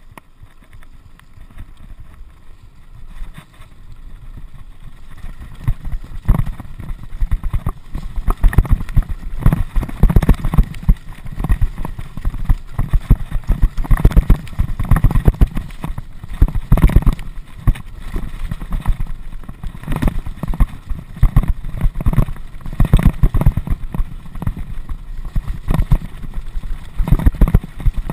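Mountain bike riding downhill over a rough, rocky dirt track. It rolls more quietly at first, then from about six seconds in comes a dense clatter of knocks and jolts as the tyres strike stones and the bike rattles.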